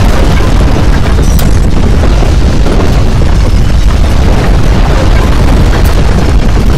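Loud, continuous deep rumbling with no breaks or rhythm: an earthquake rumble representing violent ground shaking.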